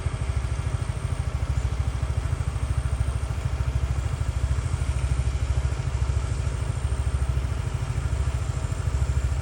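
A small engine running steadily, with a fast, even low pulse.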